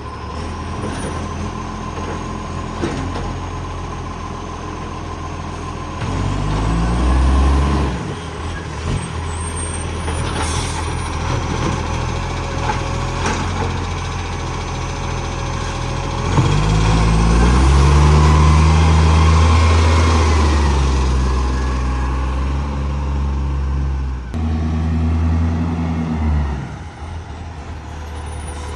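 Garbage truck's diesel engine running with a big exhaust leak, revving up three times (the middle rev the longest and loudest) and dropping back to idle in between.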